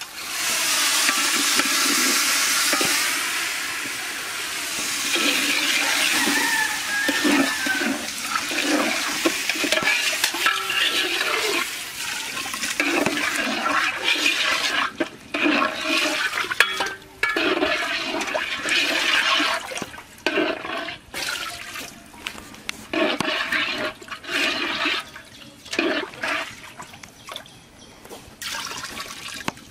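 Water poured by the bowlful into a large aluminium pot of rice, splashing. The first pour is long, followed by many shorter pours with short gaps between them.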